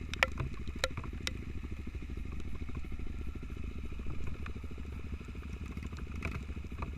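Off-road motorcycle engine running at low, steady revs, with a few sharp clicks in the first second and a half.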